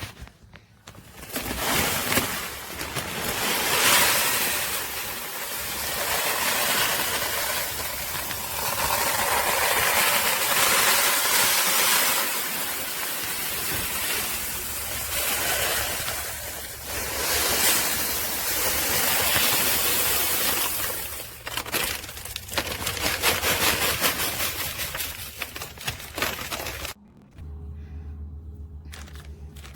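Plastic bags and packaging rustling and crinkling close to the microphone as they are handled, in irregular swells. The sound drops off near the end, leaving a low hum.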